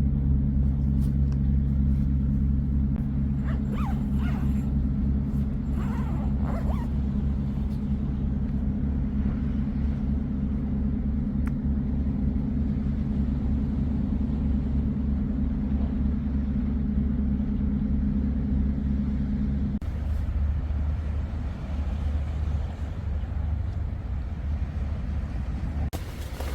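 A steady low engine-like hum that changes abruptly about twenty seconds in, with a couple of short high whining calls around four and six seconds in.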